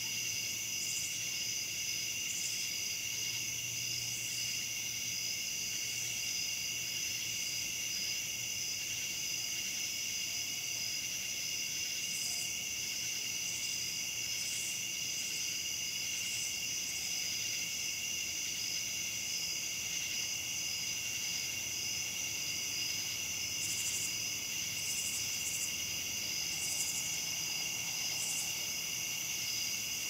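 A night chorus of crickets trilling steadily and high, with short, higher-pitched calls of katydids ("cha chas") coming and going at irregular intervals.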